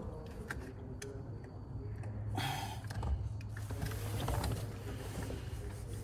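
Hands working the plastic parts of a yoke steering wheel: scattered small clicks and knocks, with a short scraping rustle about two and a half seconds in and another near four seconds, over a steady low hum.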